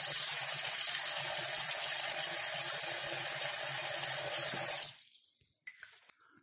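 Kitchen faucet running into a stainless steel sink basin with the drain plugged, filling it to test a resealed basket strainer for leaks. The water shuts off about five seconds in, followed by a few faint clicks.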